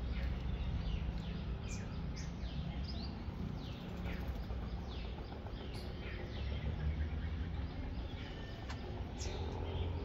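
Small birds chirping: many short, high chirps that sweep quickly downward, coming irregularly, over a steady low rumble.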